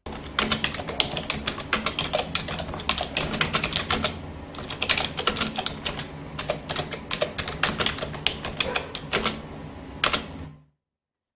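Rapid typing: a dense, irregular clatter of keystrokes over a low steady hum, cutting off suddenly about a second before the end.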